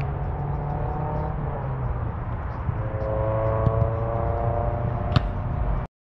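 A steady engine-like hum whose pitch drifts slowly up and down, with a single sharp knock about five seconds in. The sound cuts off suddenly to silence just before the end.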